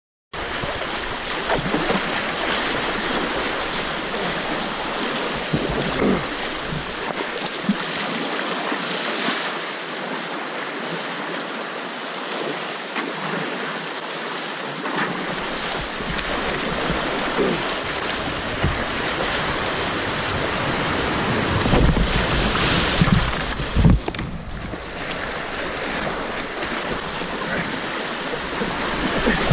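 Fast, swollen river rapids rushing around a whitewater kayak as it runs downstream, a steady loud rush of water with occasional short splashes.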